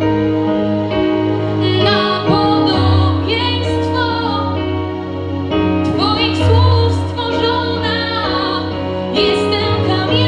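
A young woman sings a slow ballad into a microphone over instrumental accompaniment of sustained chords and a steady bass. Her voice comes in about two seconds in and holds long notes with vibrato.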